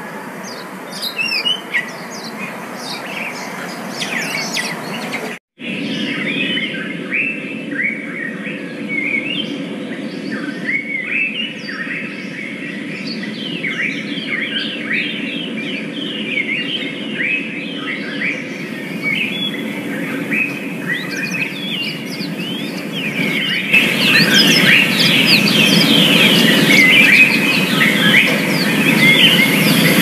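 Yellow-fronted canaries (Mozambique canaries) singing: a rapid, continuous twitter of short rising and falling chirps over steady outdoor background noise. The sound breaks off briefly about five seconds in and grows louder over the last quarter.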